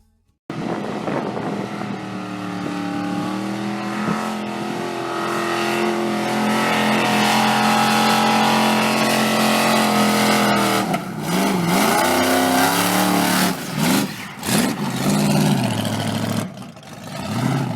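Chrysler 360 V8 stroked to 408 in a skid car, held at high revs for about ten seconds during a burnout, then revved up and down in quick swings before dropping off near the end.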